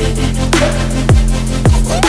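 Background music: an electronic beat with deep bass notes that drop in pitch about twice a second, with no singing.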